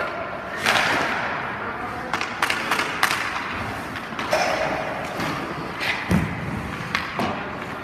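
Ice hockey goalie's skates scraping across the ice and his leg pads and gear knocking down onto it as he drops into the butterfly and slides post to post: a series of sharp knocks mixed with scrapes.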